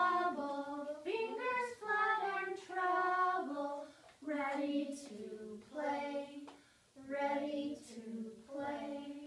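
Young children singing a simple song together in held, stepwise phrases with short breaks between them, a woman's voice singing with them.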